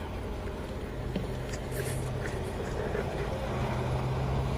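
ZMZ-409 four-cylinder petrol engine of a UAZ Patriot idling steadily and evenly, with no lifter ticking: the newly replaced hydraulic lifters are running quietly.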